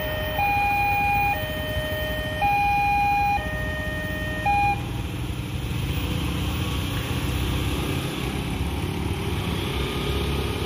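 Railway level-crossing warning alarm sounding an alternating high-low two-tone, about one tone a second, which cuts off about five seconds in as the crossing reopens after the train has passed. Motorcycle engines then rev up as the waiting traffic moves off.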